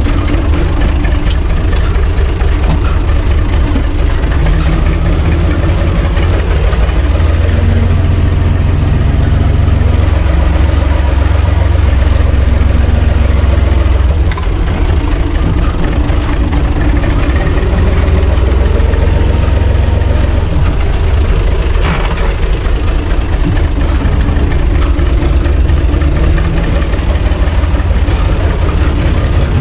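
UTB Universal 445 DT tractor's diesel engine running under way, heard from inside the cab. It runs steadily with a slight rise and fall in the engine note, loudest in the middle of the stretch.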